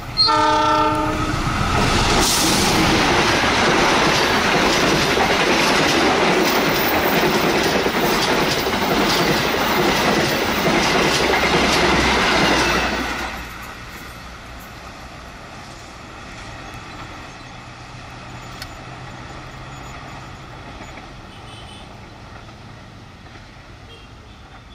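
Diesel-hauled passenger train passing close by fast. A short locomotive horn blast sounds at the very start, then the locomotive and coaches rush past, clattering over the rail joints. The noise cuts off sharply about 13 seconds in as the last coach clears, leaving a fainter rumble as the train runs away.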